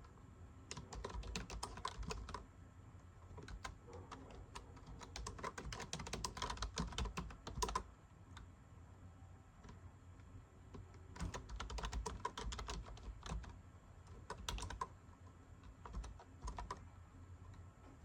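Typing on a computer keyboard: quick runs of key clicks in several bursts of one to four seconds, with short pauses between them, over a faint steady hum.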